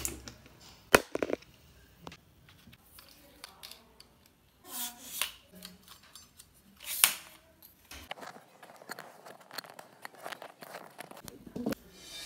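Handling clicks and clatter: a sharp click about a second in as a charger is plugged into a wall switchboard, then scattered snaps, rustles and small ticks as a tripod's legs are opened and locked.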